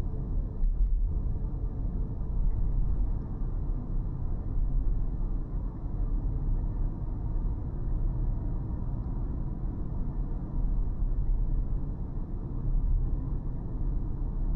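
Steady low rumble of a car driving: road and engine noise with no distinct events.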